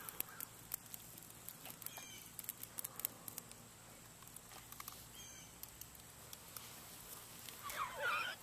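Soft chewing and lip-smacking clicks as a piece of cooked fish is eaten close to the microphone. A brief louder sound with a wavering pitch comes near the end.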